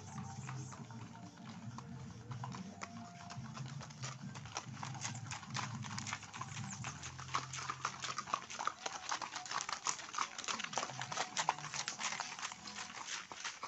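Horses' hooves clip-clopping on a dirt road as riders and a horse-drawn cart pass, the hoofbeats growing denser and louder after the first few seconds. A low steady hum sits underneath and fades out about halfway.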